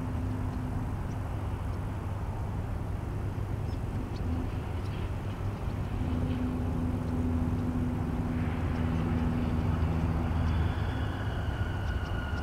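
Road traffic over a steady low hum: a vehicle's engine swells through the second half as it passes. Near the end a distant siren begins to sound.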